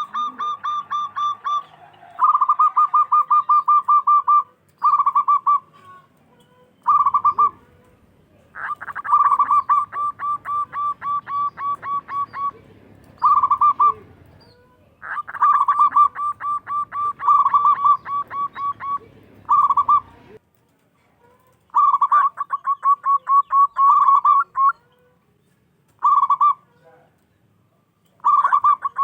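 Zebra dove (perkutut) cooing loudly: repeated bouts of fast staccato coo notes, each bout a second or two long, with short pauses between.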